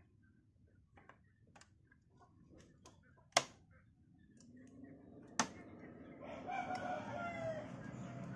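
A rooster crowing once, a drawn-out call that falls in pitch at its end, about six and a half seconds in. Two sharp clicks come before it, about three and a half and five and a half seconds in, and a low hum rises and grows louder after the second click.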